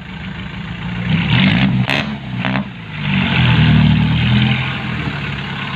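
Dump truck's diesel engine revving up twice, the second time harder, with a sharp click about two seconds in.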